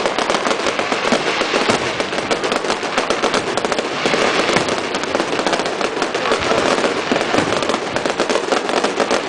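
Fireworks going off in a dense, continuous crackle of rapid pops, with no break.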